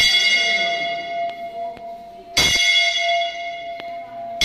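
Metal temple bell struck twice, about two and a half seconds apart, each stroke ringing on and slowly fading.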